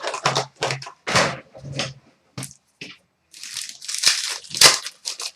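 Trading card pack wrapper being torn open and crinkled, with cards shuffled in the hands: a run of irregular crackles and a longer crinkling rustle near the end.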